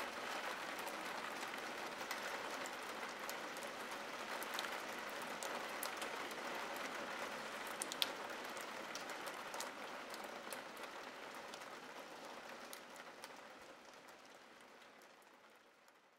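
Steady rain falling on window glass, with scattered sharp ticks of single drops. It fades away over the last few seconds.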